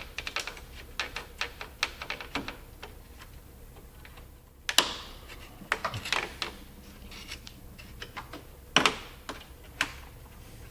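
Plastic trim and clips clicking and snapping as a Jeep Grand Cherokee's liftgate trim panel is worked loose by hand. There are many light irregular clicks, with a louder snap about halfway through and another later on.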